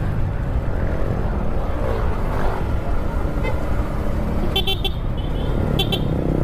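Yamaha MT-15 motorcycle riding along, its 155 cc single-cylinder engine under a steady rumble of wind noise on the camera's microphone. Two quick bursts of short, high horn beeps come in the second half.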